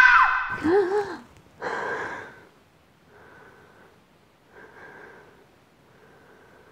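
A woman gasping awake: a loud high sound cuts off right at the start, then a short low voiced gasp and a sharp noisy intake of breath, followed by three slower, fainter breaths about a second and a half apart.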